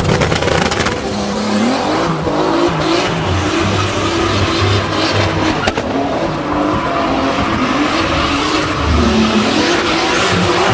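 Turbocharged BMW E36 M3's straight-six revving up and down during a burnout, its rear tyres squealing as they spin.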